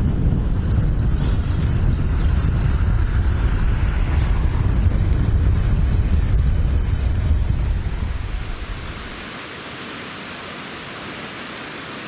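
Wind buffeting the microphone while cycling, a heavy low rumble. About eight seconds in it gives way to a steady rushing hiss of water from the stream below the waterfalls.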